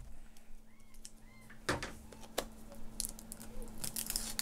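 Fingers picking and peeling at the plastic wrapping on a cardboard trading-card box: scattered small crinkles and clicks, sparse at first and coming closer together in the last second or so.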